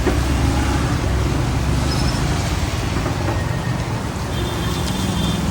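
Steady road-traffic noise with the hiss of heavy rain, and a faint high steady tone near the end.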